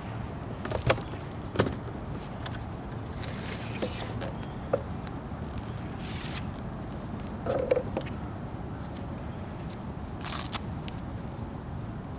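A few sharp knocks and a dull thud from a fishing kayak's hull and gear, with short hissing swishes now and then, over a faint steady high insect buzz.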